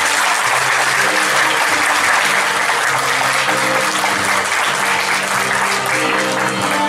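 Steady applause from many people clapping, with music playing underneath.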